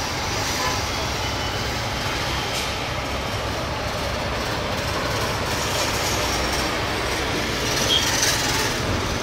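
Airbus A320 jet engines at taxi power as the airliner rolls slowly and turns: a steady rumble and hiss.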